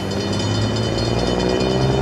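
Grade-crossing bells ringing with a fast steady pulse as an approaching freight locomotive sounds its horn, a low multi-note chord.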